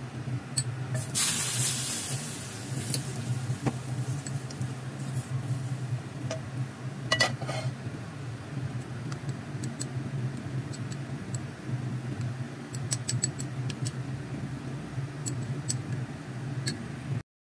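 Very hot oil poured over minced ginger and scallions in a ceramic bowl, sizzling sharply about a second in and dying away over a couple of seconds. Then a ceramic spoon stirs the sauce, clinking against the bowl now and then, over a steady low hum.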